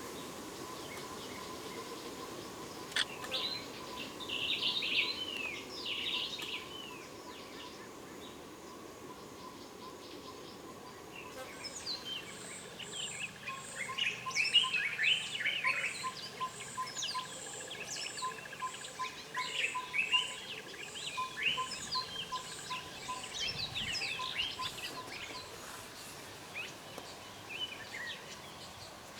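Wild birds calling and chirping: a short flurry of chirps a few seconds in, then busier chirping from several birds from about halfway on, with a high note repeated evenly about twice a second behind them.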